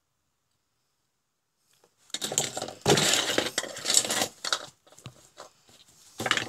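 Clattering of hard parts being set down and shuffled on a workbench: small circuit boards, metal and plastic housing pieces and tools knocking together. A dense clatter starts about two seconds in and lasts a couple of seconds, followed by a few light clicks and a short clatter near the end.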